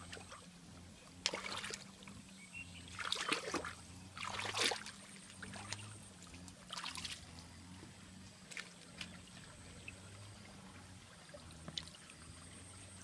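Hands sloshing and splashing in shallow muddy water while groping for snails, in several short bursts, with a few small clicks in between. A faint steady low hum runs underneath.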